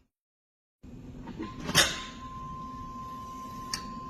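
Ignition key clicked on in a 3rd gen Camaro Z28 with tuned port injection: a sharp click, then a low hum and a thin steady whine as the electric fuel pump primes the fuel rail, with another click about three and a half seconds in. The system is building pressure for a fuel pressure check.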